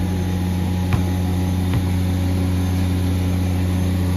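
Steady low mechanical hum with a constant pitch, like an engine idling, and two faint thuds about a second and just under two seconds in.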